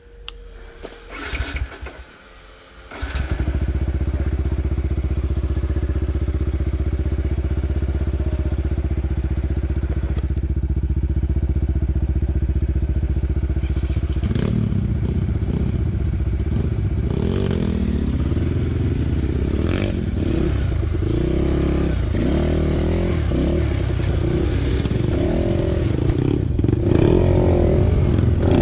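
Dirt bike engine starting about three seconds in, after a few clattering knocks, and idling steadily. From about halfway it runs with uneven revs, the pitch rising and falling.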